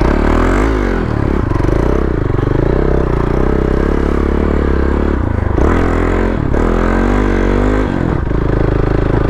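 Motorcycle engine being ridden, its pitch rising and falling repeatedly as the throttle is opened and closed.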